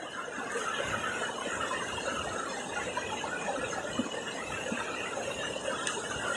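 Rammam mountain river rushing steadily over its bed, a constant even roar of water close by.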